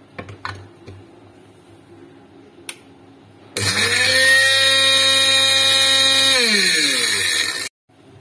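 Electric spice grinder running at full speed, regrinding whole garam masala spices to a fine powder. It starts about three and a half seconds in after a few light handling clicks, runs steadily for about three seconds, then its motor winds down with a falling pitch.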